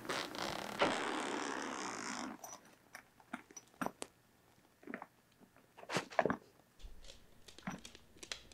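Zipper of a soft fabric pet carrier being pulled open in one long rasp, followed by scattered light clicks and rustles as the carrier's mesh flap is opened and a rabbit climbs out.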